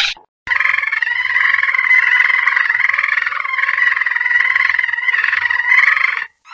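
Processed 'alien cat' meow sound effect: one long, buzzy call held steady for about six seconds, starting after a brief break.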